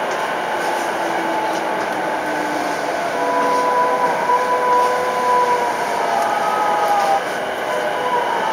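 E233-5000 series electric train heard from inside its motor car while slowing: the whine of the VVVF inverter and traction motors falls in pitch, then holds steady high tones over the rumble of the wheels on the rails. About seven seconds in the tones stop abruptly and the sound drops a little.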